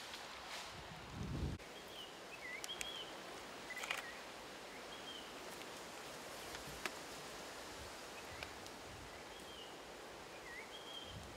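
A bird giving short, scattered whistled chirps over quiet woodland ambience, with a few sharp clicks and a low bump about a second in.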